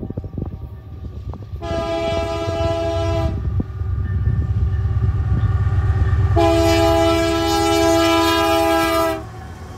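Diesel freight locomotive's multi-chime air horn sounding twice: a short blast, then a longer one of about three seconds, each a chord of several tones. A steady low engine rumble runs underneath, with a few clicks near the start.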